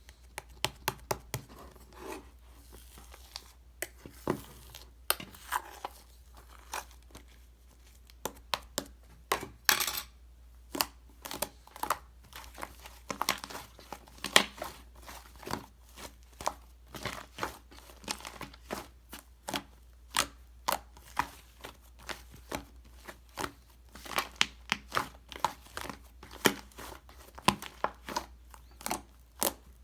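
White shaving-foam slime being pressed and stretched by hand, giving sharp sticky pops and crackles at an irregular pace.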